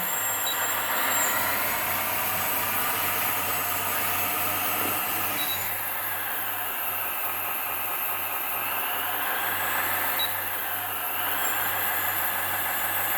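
Scale RC hydraulic excavator running: its sound module plays a steady diesel-engine sound, under a whine from the hydraulic pump and the brushless track and slew motors that rises and falls in pitch as one track and the cab rotation are driven.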